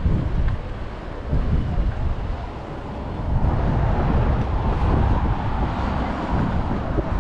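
Wind buffeting the microphone over street noise, with a car driving past, swelling from about halfway through.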